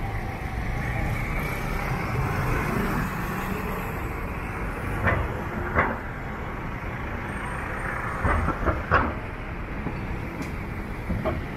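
City street traffic: motor vehicles passing with a steady low rumble, and a few short clacks about halfway through.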